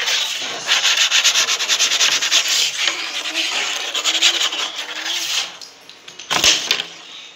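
A hand rubbing carrom powder across a carrom board's playing surface, a fast, dry scrubbing that stops about five and a half seconds in. It is followed by a single sharp knock.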